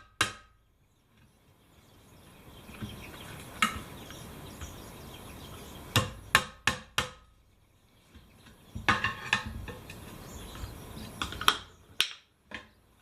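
Hammer blows on a stiff old tyre and its rusty steel rim, knocking the bead down. The blows come irregularly: one, then a quick run of four, then a cluster, then two more near the end, with scuffling between them.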